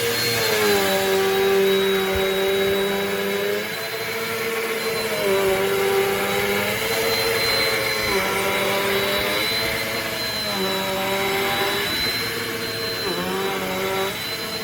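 Upright vacuum cleaner motor running, with a thin high whine over the motor hum. Its pitch dips and recovers about every two to three seconds as the load on the motor changes.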